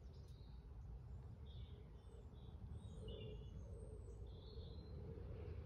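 Faint woodland birdsong: a run of short, high chirps through the middle, over a steady low background rumble.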